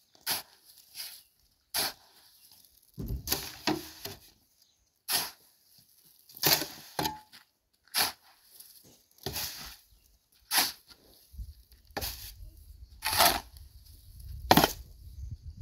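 Steel shovel scraping and scooping sand and cement mix over hard ground, about a dozen separate strokes one to two seconds apart, the sharpest near the end.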